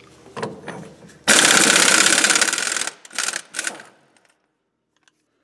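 3/4-inch-drive impact wrench with a 1 5/16-inch socket hammering on the rusty nut of a truck's steering drag link ball joint. After a few knocks as the socket goes on, there is one long burst of rapid impacts of about a second and a half, then two short bursts.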